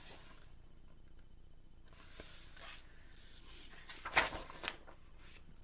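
Pages of a hardcover picture book being handled and turned, with faint paper rustling and one sharper page flip about four seconds in.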